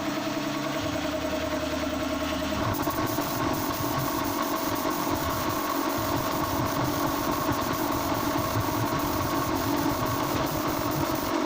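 Air compressor motor running steadily for spray painting. About three seconds in the sound turns noisier and denser.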